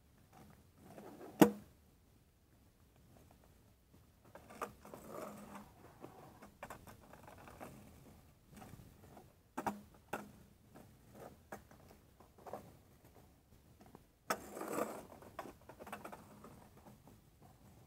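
A scooter being ridden and tricked on a street surface: rolling and scraping with several sharp clacks. The loudest, single clack comes about a second and a half in, and more come about ten and fourteen seconds in.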